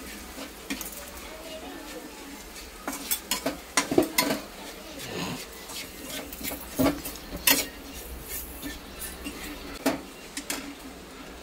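A steel spoon scraping and clinking against a small kadhai as sugar is stirred into fried onions and spices, with light sizzling underneath. The clinks are irregular, the loudest about four seconds in and again midway.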